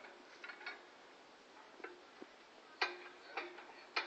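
Hand winch of a tilt-over lattice antenna mast clicking as it is worked: about seven sharp metallic clicks at uneven spacing, several followed by a brief ring, the loudest in the second half.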